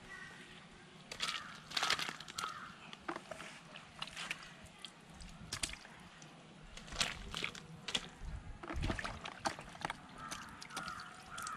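Pieces of fish being dropped into a large pot of simmering curry gravy: a run of irregular knocks and splashes.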